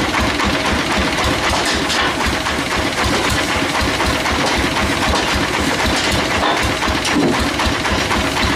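Engine driving a band sawmill running steadily, with a fast, even low-pitched pulse.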